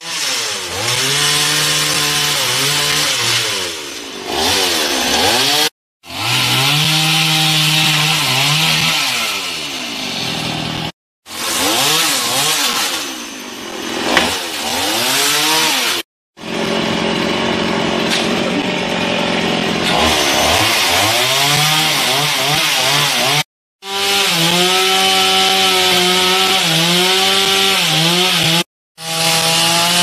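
Two-stroke gasoline chainsaw cutting branches of a storm-felled tree, its engine pitch rising and falling as it is revved and loaded in the wood. The sound breaks off briefly several times.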